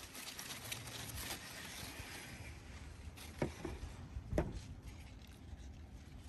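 Faint rustling of corn leaves with two soft handling bumps, one about three and a half seconds in and one about a second later, as the phone is moved among the corn plants.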